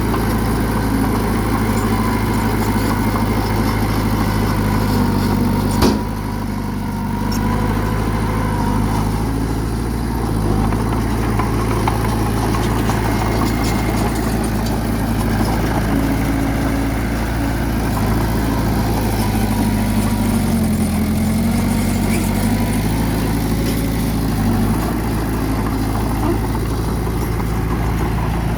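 Heavy diesel engine of a bulldozer running steadily, with one sharp bang about six seconds in and a brief change in engine pitch a little after twenty seconds.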